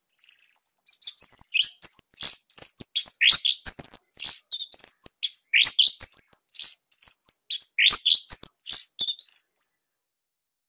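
Orange-headed thrush singing a fast, varied song of high whistled notes and chattering trills, ending abruptly near the end.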